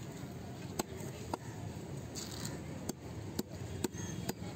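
Knife blade scraping scales off a fish on a wooden chopping block: several sharp, irregularly spaced clicks and scrapes as the blade strikes and flicks off the scales.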